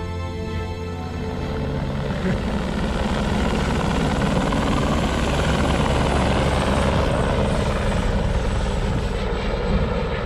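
Helicopter flying close by, its rotor beat and engine growing louder over the first few seconds and then holding steady.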